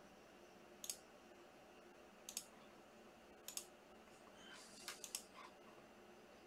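Computer mouse clicking about six times, singly and in quick pairs a second or so apart, over faint room hiss.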